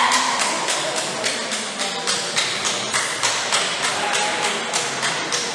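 Spectators clapping in a quick, even rhythm, about four claps a second, with a shout fading out in the first second.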